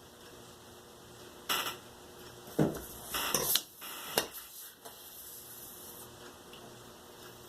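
A few short clatters and scrapes of tools and cardboard being handled on a work surface: one about a second and a half in, then a quick cluster of knocks and scrapes between about two and a half and four and a half seconds in.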